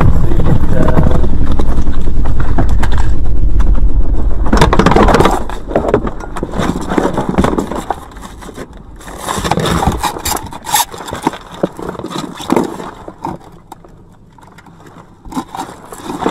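Car ploughing off the road into dense bushes, heard through a dashcam: a loud, heavy rumbling scrape for about the first five seconds. It then drops to quieter, irregular rustling and scattered knocks and snaps of branches against the car.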